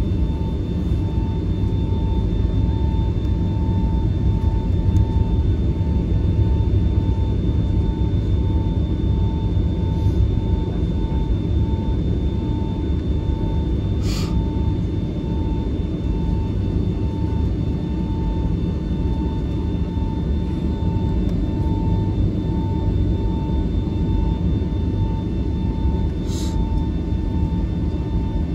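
Cabin noise of a Boeing 757-300 taxiing: a steady low rumble from the engines and airframe with a faint high whine. There are a few brief clicks, the plainest about halfway through.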